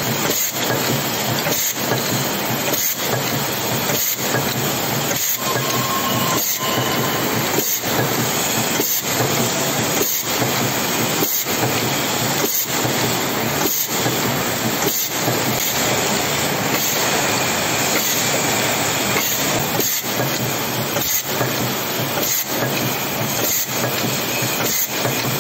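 Cold forging machine running, heading triangular-head anti-theft screw and rivet blanks: a loud, continuous metallic clatter with a regular beat, about one brief lull a second.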